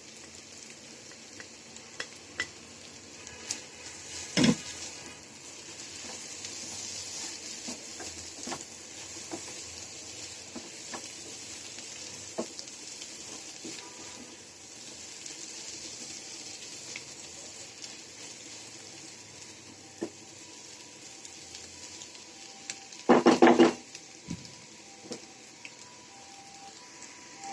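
Cauliflower, potato and carrot bhaji sizzling in a frying pan as it is stirred, with a spatula scraping and tapping against the pan. A sharp knock comes about four seconds in, and a louder clatter of the spatula on the pan late on.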